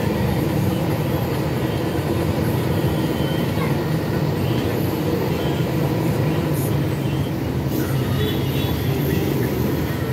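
A steady low mechanical rumble with a faint hum in it, and a couple of faint clicks about seven seconds in.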